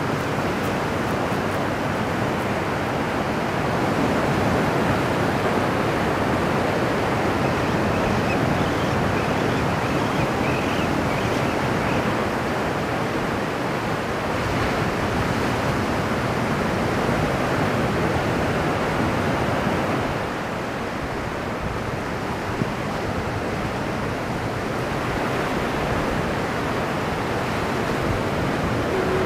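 Ocean surf washing and breaking, a continuous rushing noise that swells and eases.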